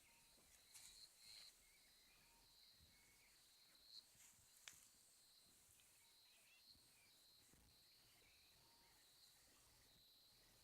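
Very faint outdoor rural ambience: a steady high insect drone that swells and fades, with a few soft bird chirps and a couple of small clicks.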